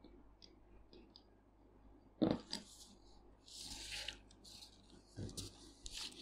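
Faint handling sounds of a quill dip pen and a sheet of paper: small clicks as the metal nib is dipped at the ink bottle, a sharp knock about two seconds in, and a soft rustle around four seconds in as the paper is slid across the table cover.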